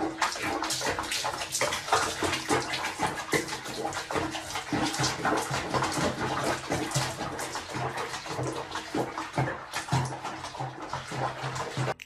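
Water splashing and sloshing in a continuous, irregular patter, as in a bathtub.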